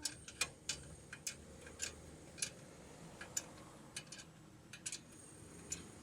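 Sharp, irregular metallic clicks and taps, about a dozen spaced half a second to a second apart, from work on the car's suspension parts, over a faint steady hum.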